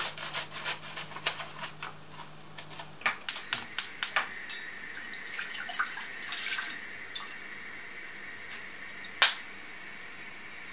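Scissors snipping through a plastic food packet in quick cuts, then a few clatters and water pouring from a jug into an enamel saucepan. One sharp knock sounds near the end.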